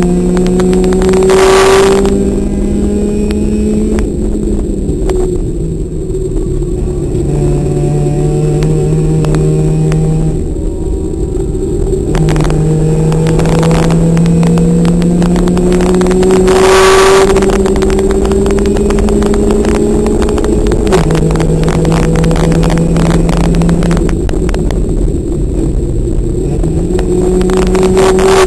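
Car engine heard from inside the cabin on track, its note climbing under acceleration and stepping down at gear changes and lifts several times, over steady road and wind noise. Two short louder surges come about a second and a half in and again just past halfway.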